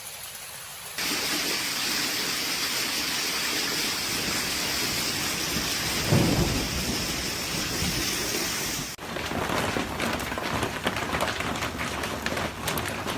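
Heavy rain hissing steadily, with a short loud rumble of thunder about six seconds in. About nine seconds in the sound changes abruptly to a dense pelting of many sharp hits: hail and rain striking hard surfaces.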